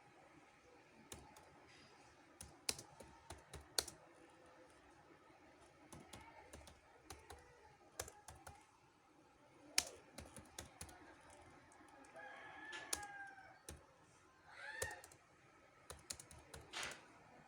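Typing on a computer keyboard: irregular, scattered keystroke clicks. Past the middle a faint pitched call is heard twice in the background.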